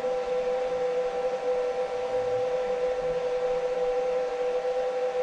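Turret milling machine running with a steady whine of constant pitch while its table traverses over to the next hole.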